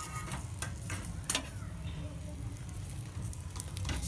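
Steel spoon clicking and scraping against a hot griddle (tawa) while gram-flour batter is spread over a roti, with a faint sizzle of the oiled pan underneath. A few sharp clicks, the loudest about a second in.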